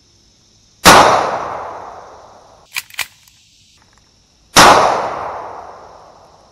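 Two shots from a Hi-Point JCP .40 S&W pistol firing CCI No. 9 shotshells, nearly four seconds apart, each ringing out and dying away over a second or more. Two quick small clicks come between the shots.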